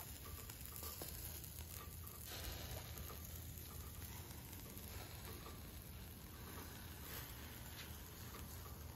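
Skewered kebab meat sizzling faintly over a charcoal grill, with a steady low hum beneath and an occasional faint tick.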